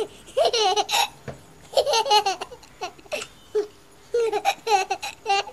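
A baby laughing and babbling in about five short, high-pitched bursts.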